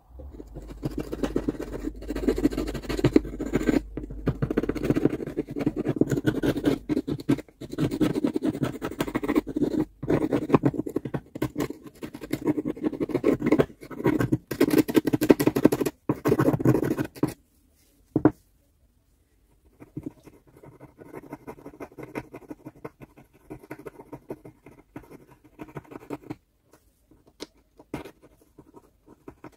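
Rapid, dense scratching and scraping of hand work on a part, loud for the first seventeen seconds or so, then after a short pause a quieter stretch of the same scratching.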